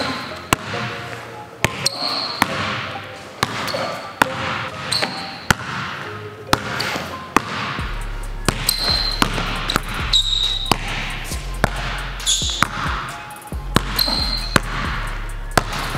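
Basketball dribbled on a hardwood gym floor in an uneven rhythm, quick bursts of bounces alternating with slower ones, for a change-of-speed drill. Short high sneaker squeaks on the floor come several times as the player cuts and plants.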